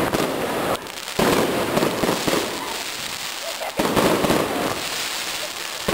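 Fireworks crackling and popping in dense, rapid volleys. A louder surge comes about a second in and another near four seconds.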